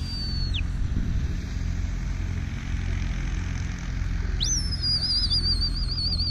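A shrill, evenly warbling whistle, heard briefly at the start where it glides down and stops. It comes back with an upward swoop about four and a half seconds in and keeps warbling. A steady low rumble runs underneath.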